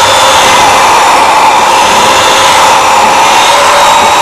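Craftsman electric drill running at a steady speed with a high motor whine, drilling the head off a pop rivet.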